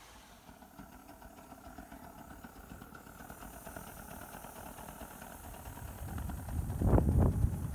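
Live steam model locomotive running on the track, growing steadily louder as it approaches and loudest as it passes close near the end.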